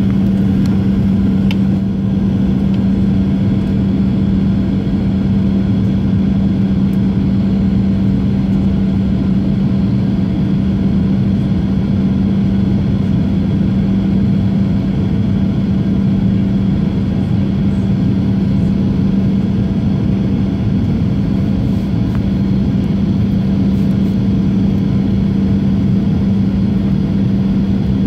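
Cabin noise inside a Boeing 737-800 on approach: the steady drone of its CFM56-7B turbofan engines and the rush of airflow, with a constant low hum standing out.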